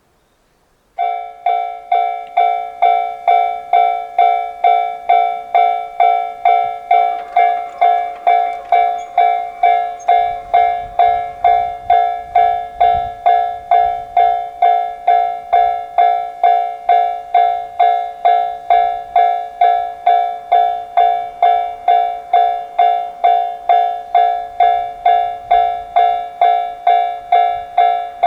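Japanese railway level-crossing warning alarm starting about a second in: two electronic crossing bells of different tone, a Nikko-type and a 'pon-pon' Tojo-type, striking together in exact step at about two strikes a second, the signal that a train is approaching.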